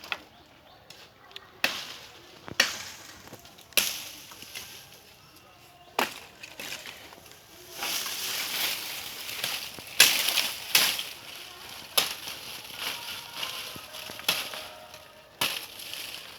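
Blade chopping into a tree's wood by hand: about ten sharp strikes at irregular spacing, a second or two apart. A few seconds of rustling noise come in the middle.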